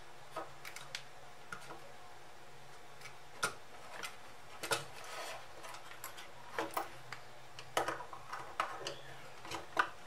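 Irregular small clicks and taps as a plastic 11-pin relay base and its wires are handled and a wire is connected to a screw terminal, about a dozen sharp clicks spread unevenly.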